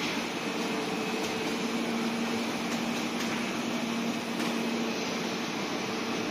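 Wire-cut EDM machine running: a steady whirring machine noise with a low, even hum that grows stronger for a few seconds in the middle.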